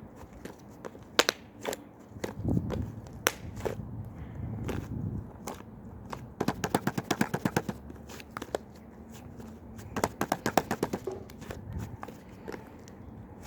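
Glossy clear slime being pressed and squeezed by hand, giving sharp clicking pops and soft squishes. There are two quick runs of clicks, about ten a second, around the middle and again a few seconds later.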